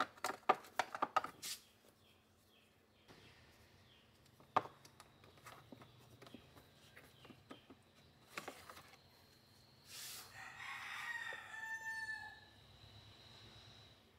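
Quick light clicks and knocks of tools being handled in a small plastic wall-mounted holder, loudest in the first second and a half, then a few single clicks. About ten seconds in, a rooster crows once for about two and a half seconds, its call falling at the end.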